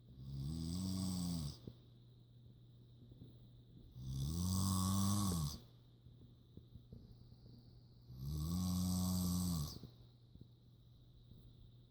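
A woman snoring in her sleep: three long snores about four seconds apart, each about a second and a half long, rising and then falling in pitch.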